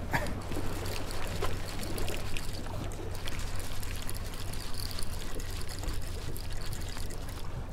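Water rushing and splashing along the hull of a moving boat, over the steady low hum of its engine, with scattered light clicks.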